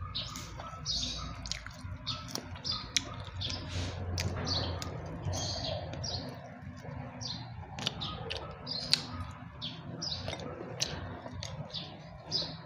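Small birds chirping over and over, short high chirps several times a second, with sharp clicks scattered among them.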